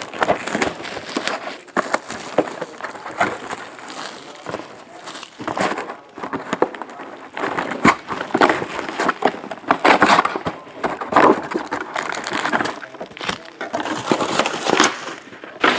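Plastic shrink wrap torn off a sealed trading-card box and crumpled by hand, with foil card packs handled: dense crinkling and crackling with many small clicks.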